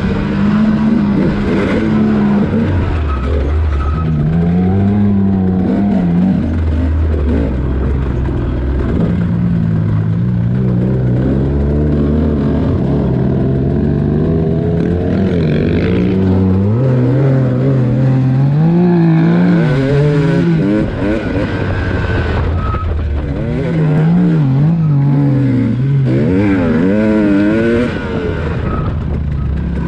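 Dirt bike engine running under way, its pitch rising and falling again and again as the throttle is opened and closed.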